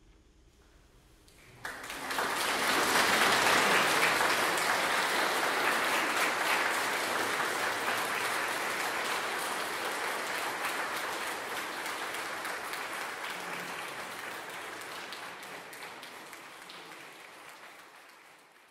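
Audience applauding: after a brief hush, clapping starts suddenly, is loudest a couple of seconds later and then fades away gradually.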